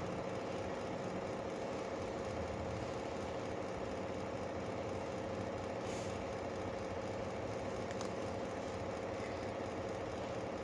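Steady background machine hum with a constant mid-pitched tone, and a couple of faint clicks.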